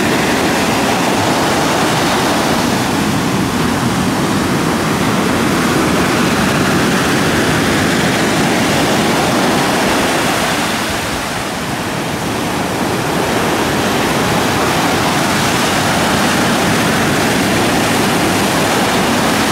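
Rough sea surf breaking and washing up a sandy beach: a loud, continuous wash of waves that dips slightly around eleven seconds in.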